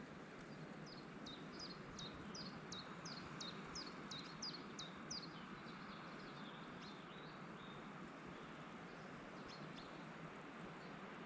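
A songbird singing a quick series of high notes that each drop sharply in pitch, about three a second for roughly four seconds, then a few scattered notes near the end, over a steady background rush of forest ambience.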